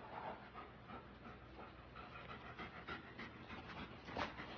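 A dog panting softly in quick, rhythmic breaths, with one louder puff about four seconds in.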